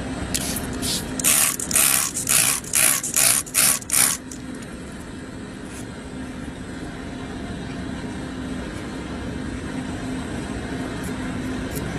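Hand spray bottle squirting water onto a cow's hoof claw in about nine quick hissing squirts, rinsing grit and rocks out of the trimmed white line. A steady low machine hum runs underneath.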